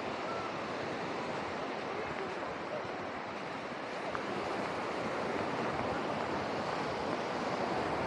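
Small surf washing onto a sandy beach: a steady, even rush of breaking waves, slightly stronger in the second half.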